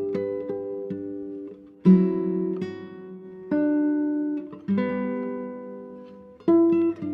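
Acoustic guitar music: plucked notes and chords that ring out and fade, with fresh strums about two seconds in, in the middle and near the end.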